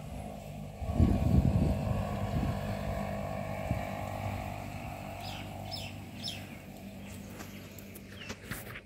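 An engine humming steadily, with heavy low rumbling buffets on the microphone from about one second in, fading after a second or so.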